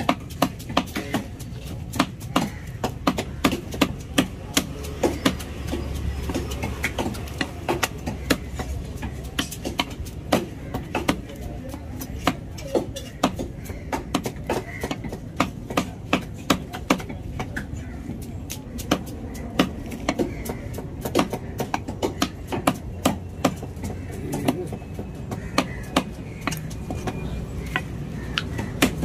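Large knife chopping tuna into chunks on a wooden log chopping block: sharp, irregular knocks, a few a second, each blow striking through the flesh into the wood.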